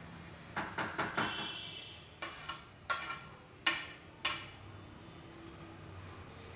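A spoon knocking and clinking against a dish, about nine sharp strikes with short ringing: a quick run near the first second, then single knocks spaced out until about four seconds in.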